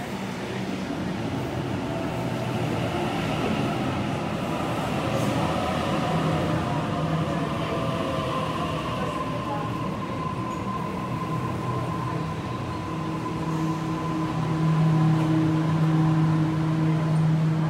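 Waratah Series 1 electric train pulling into a platform and slowing, with the running rumble of its cars. Its motors whine in falling tones over the first several seconds. A steady hum grows louder near the end as the carriages roll past close by.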